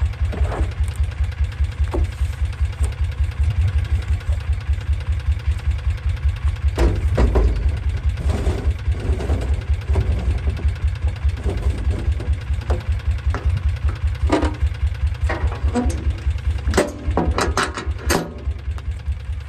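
Engine idling with a steady low, pulsing rumble, with several knocks and clanks over it, a cluster of them near the end.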